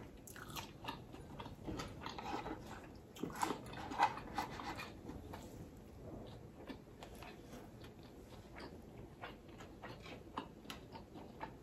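Close-miked eating sounds: chewing and lip smacking on a soft mouthful of rice and seafood, with many small wet mouth clicks, busiest in the first few seconds and sparser later.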